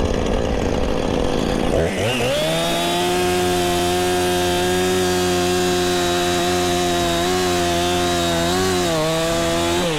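Chainsaw revved up to full throttle about two seconds in and held there at a steady high pitch, bogging slightly now and then as it cuts through a small tree's trunk, then let off near the end with a falling pitch. This is the felling cut behind a Humboldt notch.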